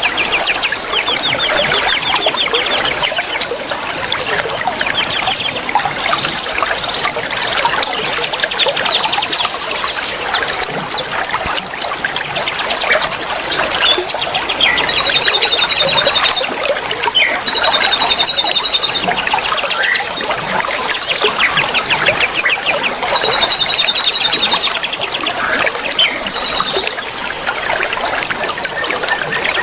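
A dense chorus of many young wild birds calling at once: fast rattling trills and chatter overlap with high, held whistled notes, with no pause. This is the massed chattering of young forest birds (Indonesian 'ombyokan grabakan muda') used to prompt caged songbirds to sing.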